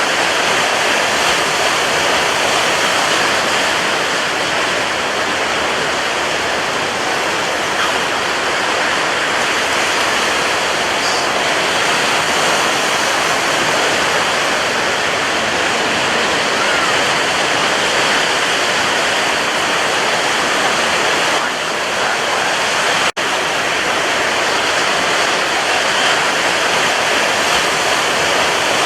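Ocean surf making a continuous, even rush of water noise with no distinct wave breaks, cut by a split-second dropout about 23 seconds in.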